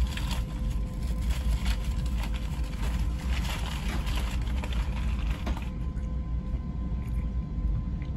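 Amtrak Acela electric train running along the track, heard from inside a passenger car: a steady low rumble with a faint steady hum and a clattering hiss of wheels on rail. The hiss cuts off suddenly about two-thirds of the way through while the rumble carries on.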